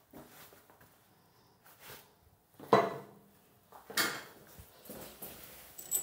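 A few short knocks and clatters of tools and plumbing parts being handled, the loudest about three seconds in, with quieter ones near four and five seconds.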